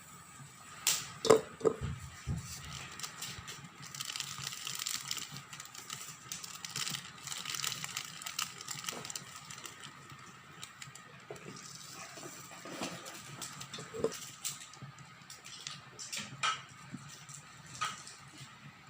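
Kitchen food-preparation sounds: several sharp knocks and clinks of utensils and containers, the loudest about a second in, with a stretch of rustling, water-like hiss in the middle.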